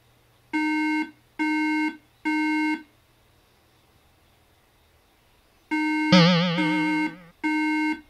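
An iMac A1311 (Mid 2011) sounding its three-beep startup error code twice. Each burst is three short, equal beeps; three beeps is the Mac's sign of a memory (RAM) fault. During the second set a separate warbling sound, louder than the beeps, starts suddenly and lasts about a second.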